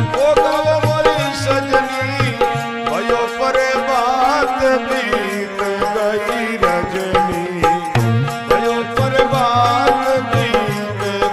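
Devotional bhajan music: drums keep a steady beat under a wavering melodic line.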